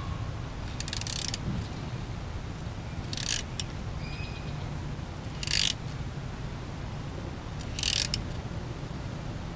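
Ratchet turning a thread tap into a stripped oil pan bolt hole, re-cutting the threads for a helicoil repair. There are four short bursts of ratchet clicking about two seconds apart, over a steady low rumble.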